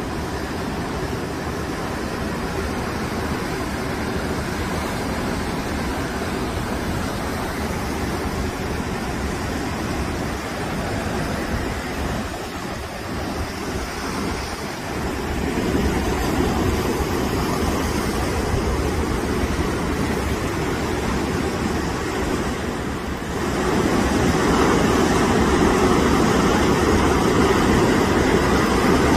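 Typhoon-driven surf crashing and rushing over a seawall, with strong wind gusting on the microphone. The noise dips for a moment about halfway through and grows louder for the last few seconds.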